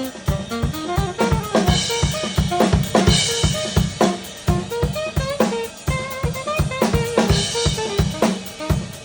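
A live band playing an instrumental passage: a drum kit keeps a busy, steady beat of kick and snare under a melodic line, with cymbal crashes about two, three and seven and a half seconds in.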